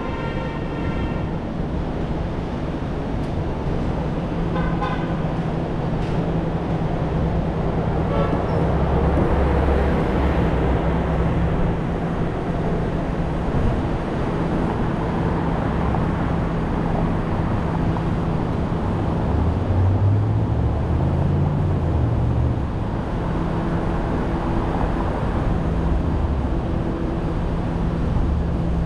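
A car driving through city traffic: steady engine hum and tyre noise. Short car-horn toots come in the first second or so and again about five seconds in. A deeper rumble swells twice in the middle.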